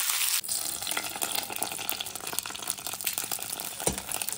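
Tempering of mustard seeds, cumin, dried red chillies and curry leaves sizzling and crackling in hot oil in an iron kadai as a wooden spatula stirs it. A loud hiss in the first half second settles into steady crackling, with one knock near the end.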